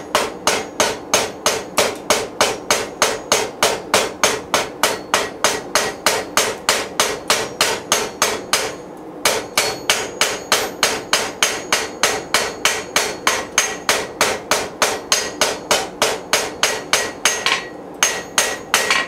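Hand hammer striking red-hot steel rebar on an anvil in a steady rhythm of about three blows a second, each blow with a light metallic ring. The blacksmith is drawing the end out to a round taper. The hammering breaks off briefly about nine seconds in and again near the end.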